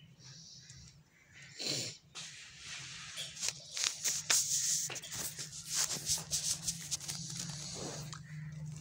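Rustling and scraping of a fabric blanket close to the microphone, in a string of short noisy strokes from about two seconds in until near the end, over a steady low hum.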